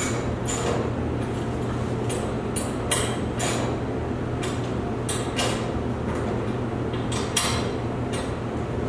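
A wrench tightening the set screws on a garage door torsion spring's winding cone gives a series of short, sharp metal clicks and scrapes, irregular, about one or two a second. A steady low hum runs under them.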